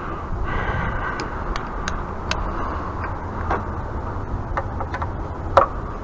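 Irregular sharp clicks and taps of a screwdriver working at a hard-to-reach screw on a pressure washer, the loudest about five and a half seconds in, over a steady low rumble.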